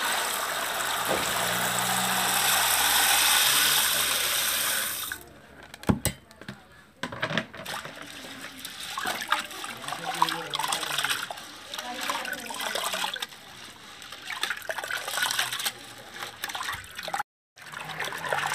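Split yellow dal poured from a plastic tray into an aluminium pot of water, a steady rush for about five seconds. Then a hand swishes and rubs the lentils in the water to wash them, with irregular splashing.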